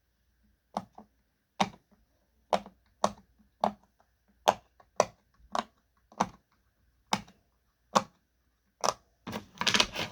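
Bubbles of a pop-it fidget toy being pressed one at a time, a sharp pop about every half to one second, with a quicker run of pops near the end.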